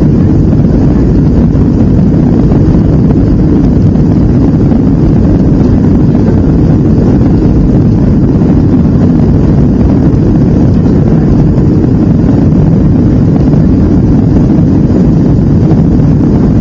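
Boeing 757 engines and rushing airflow heard inside the passenger cabin during the climb after takeoff: a loud, steady, low rumble.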